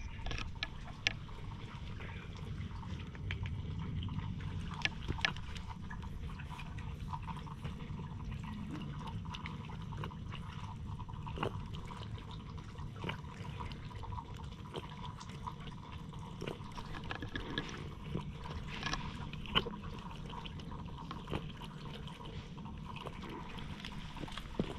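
Cat lapping water from a stone shrine water basin: a long run of small, irregular wet laps and clicks.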